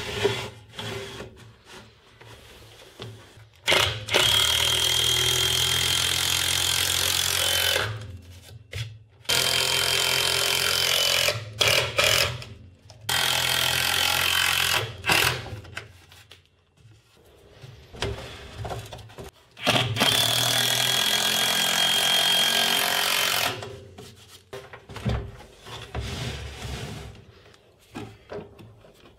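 Cordless drill-driver driving screws into plywood: four runs of the motor a few seconds each, its whine dropping slightly in pitch near the end of each run. Short knocks of wood being handled fall between the runs.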